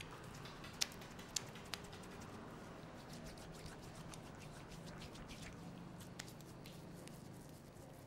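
Fingers rubbing and squishing through a lathered scalp and hair in a head massage, a faint wet crackling patter. A few sharp clicks stand out about a second in and again near six seconds.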